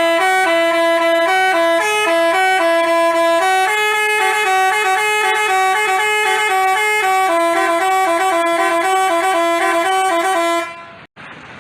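Telolet basuri multi-tone bus horn playing a quick melody of short stepped notes, stopping abruptly near the end.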